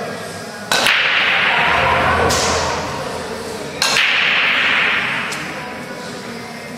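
Nine-ball break shot: the cue ball cracks into the rack about a second in, then the pool balls roll and clack together, with two more sharp knocks a second and a half apart.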